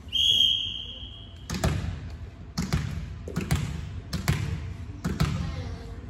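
A referee's whistle blown once, a steady shrill tone lasting about a second and a half. Then a ball bounced again and again on the hard gym floor, roughly one bounce every three-quarters of a second, many of them as a quick double thud.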